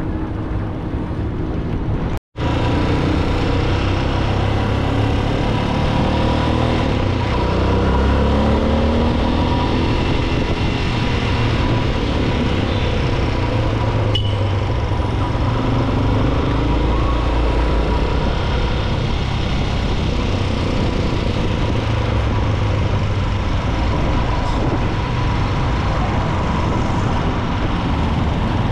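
Small motorcycle's engine running while riding in city traffic, rising in pitch as it accelerates a couple of times, with road and wind noise. There is a brief break in the sound about two seconds in.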